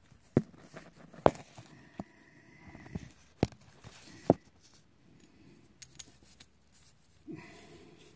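Sharp metallic clinks and knocks of hand tools and hardware being handled while setting up to remove an ISX Cummins engine's valve cam gear: four louder ones in the first half, then lighter taps.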